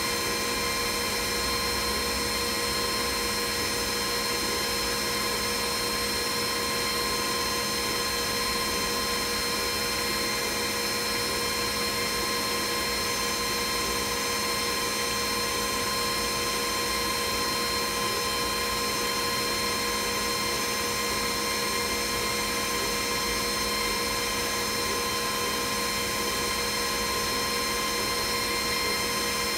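Glowforge laser cutter running while it engraves: a steady whirring hum of its fans, with steady high whines in it and no change in level.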